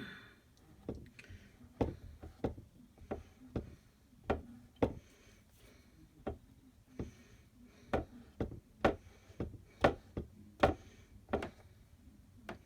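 Irregular series of light, sharp taps and knocks, about twenty in all, roughly two a second, with a short pause near the middle: hand tools tapping and knocking against a wooden board while crafting.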